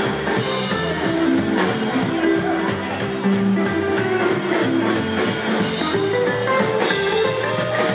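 Live rockabilly band playing at full volume: electric and acoustic guitars, upright double bass and drum kit keeping a steady beat.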